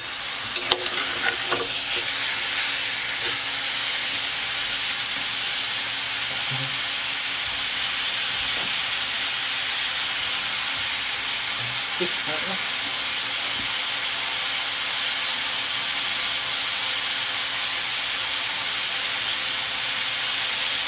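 Pork pieces with onions and garlic sizzling steadily in hot oil in an aluminium pot, being sautéed until the meat turns white. A metal ladle clinks against the pot a few times near the start.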